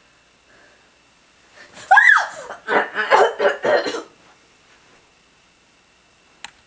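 A short high squeal that rises and falls in pitch, followed straight away by a burst of laughter in about six quick pulses, lasting about two seconds. A single faint click comes near the end.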